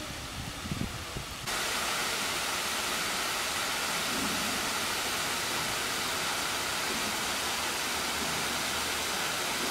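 Steady rush of falling water in a rocky gorge, which cuts in suddenly about a second and a half in. Before that there are only light rustling and soft low thumps.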